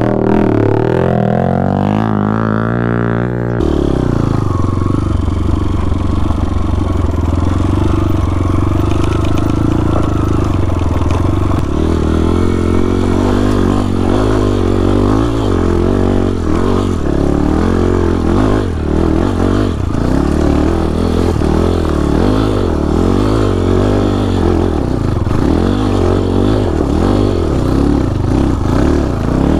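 Small single-cylinder enduro motorcycle engine revving up over the first few seconds, then running under load on the trail, its pitch rising and falling with the throttle.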